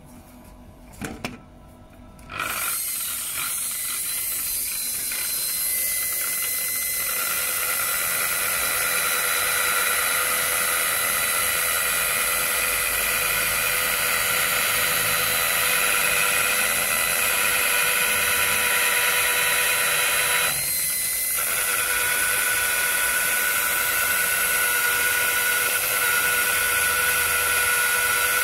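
Makita 9237C rotary polisher starting up about two seconds in, then running steadily with a motor whine as it buffs cutting compound off a sanded plastic panel. The sound dips briefly about twenty seconds in.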